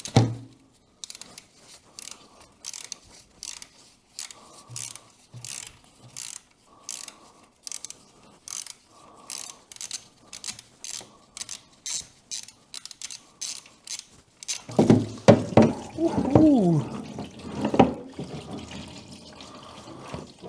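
Ratchet wrench clicking in short, even strokes, about two a second, while the oil drain plug is backed out. A louder stretch follows near the end, with a man's "ooh".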